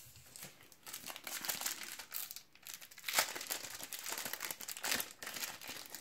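Foil-wrapped Panini Adrenalyn XL trading-card sachet crinkling as it is handled and torn open, with irregular rustling and a few sharper crackles about three and five seconds in.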